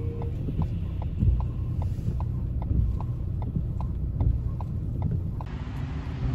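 Low road rumble inside a moving car's cabin, with the turn-signal indicator clicking steadily about three times a second. The clicking and rumble stop a little over five seconds in, giving way to an even hiss.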